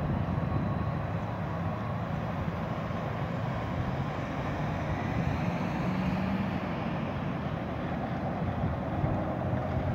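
Steady low rumble of a departing freight train of covered hoppers rolling away in the distance.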